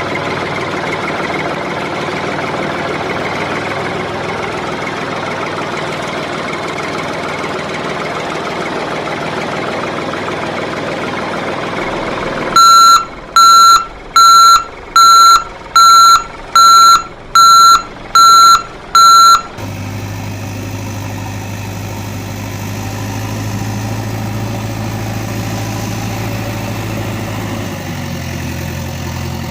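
Diesel engine of heavy machinery running, then a reversing alarm sounding eight loud beeps a little under a second apart. After that, a diesel engine idling steadily with a low hum.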